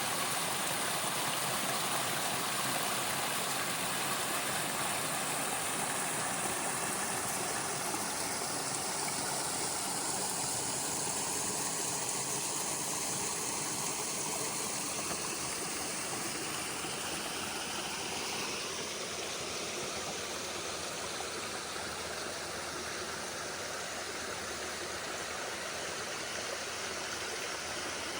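River water rushing: a steady, even noise of flowing water that eases slightly toward the end.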